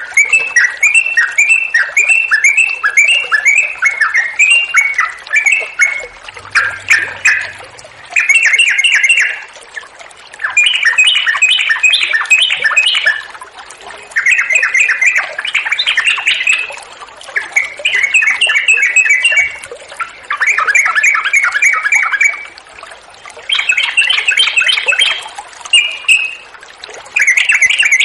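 Yellow-vented bulbul (trucuk) singing in full voice: long, rapid chattering phrases of quick bubbly notes, each lasting a second or two, repeated with short pauses between them.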